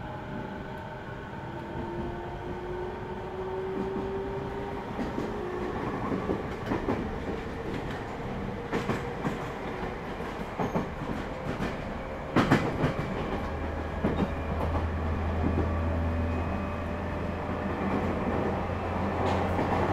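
Running sound of a JR 209 series electric train from inside a motor car above its MT68 traction motors: the motor whine climbs slowly in pitch as the train gathers speed, with wheels clicking over rail joints and one sharp clank a little past the middle. A low hum joins in about two-thirds of the way through.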